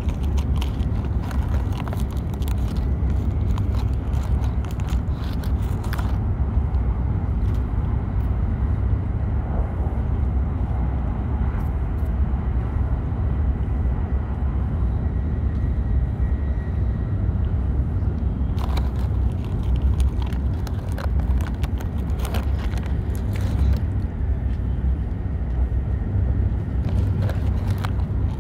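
Steady low rumble of a Shinkansen bullet train running at speed, heard from inside the passenger cabin, with scattered light clicks.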